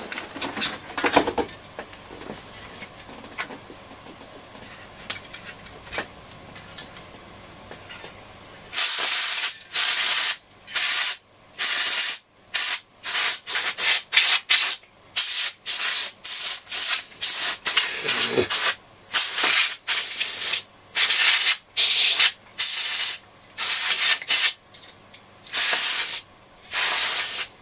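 Compressed-air duster fired in a rapid series of short hissing blasts, starting about nine seconds in after a stretch of quieter handling noise, to blow dust and debris out of a radio chassis.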